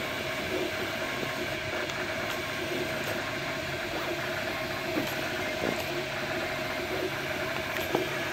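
MakerBot Replicator 2 desktop 3D printer running a print: a steady mechanical whir from its motors, with a few faint clicks.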